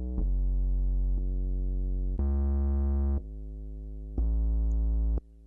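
Synth bass playing a row of sustained notes of about a second each, changing pitch from note to note. One note in the middle is clearly quieter than the others, and the loud peaks are being held down by a compressor at a 2:1 ratio. The notes stop just before the end.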